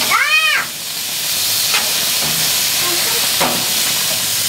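Vegetables sizzling in a perforated metal grill basket over a hot gas grill: a steady hiss as they are stirred with a spatula, with a few faint scrapes of the spatula on the metal.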